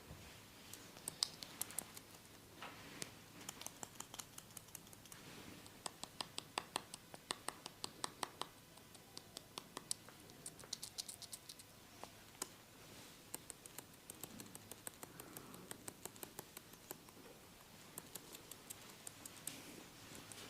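Close-miked crisp scratching and clicking from hands working on a person's head, in rapid irregular runs of sharp ticks.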